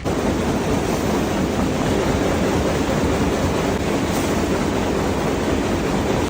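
Factory machinery running with a steady, dense mechanical din that starts suddenly.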